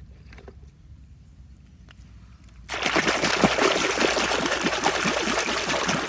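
Water pouring and splashing. It starts suddenly a little under halfway in, after a quiet stretch, and runs steadily for about three seconds.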